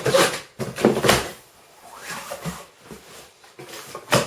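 Cardboard lawnmower box being opened by hand: flaps pulled back and cardboard scraping and rustling, with a sharp knock near the end.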